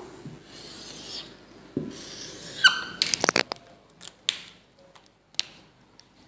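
Whiteboard marker drawing lines on a whiteboard: rubbing strokes with a short squeak about two and a half seconds in, then several sharp clicks.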